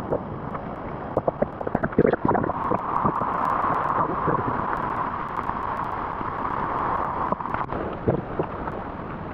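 Flowing stream water, with scuffs and knocks of someone sliding down a slick wet rock beside it, mostly in the first couple of seconds and again near the end.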